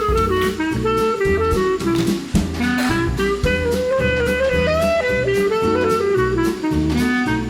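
Background jazz music with a saxophone-like melody over bass and a drum kit, at a steady beat.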